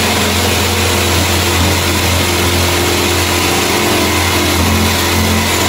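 Corded jigsaw running steadily, its blade sawing along the edge of a plywood board.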